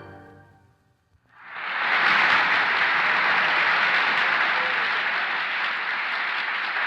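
The last notes of an orchestral piece with xylophone fade out, then an audience applauds from about a second and a half in, steady and sustained.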